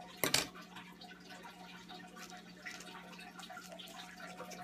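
Small clicks and taps of fingers handling a glass wax-melt burner while fishing a packet out of melted soy wax, with one sharp knock about a third of a second in. A faint steady low hum runs underneath.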